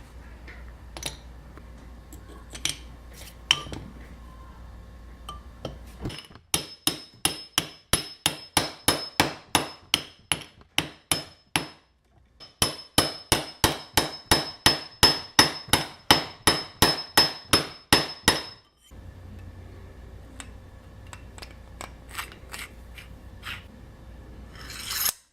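A hammer striking metal in steady repeated blows, about three a second, in two long runs with a short pause between them; each blow rings with a high metallic note. Lighter scattered clinks come before and after the hammering.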